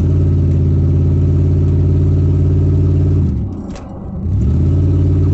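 2002 Ford Expedition's V8 exhaust running steadily, with an exhaust leak where the catalytic converter is left unconnected to the Y-pipe. A little past halfway the pitch and level dip briefly, with a short click, then come back up.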